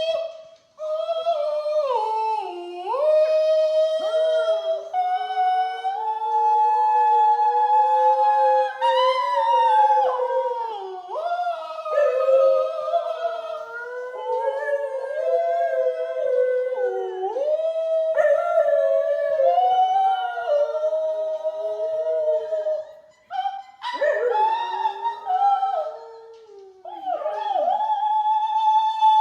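A Siberian husky howling along to a recording of an operatic soprano singing, the dog's long wavering howls overlapping the high sung melody. The sound breaks off briefly about a second in and twice more near the end.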